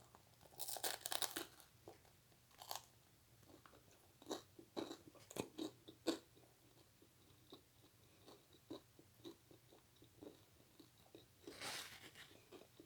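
Faint, close-miked eating sounds: a person biting and chewing in spurts, with crunchy bites and short wet mouth clicks.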